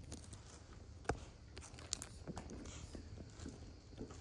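Scattered light clicks and taps from drawing a graph, with one sharper click about a second in and another near two seconds, over a steady low hum.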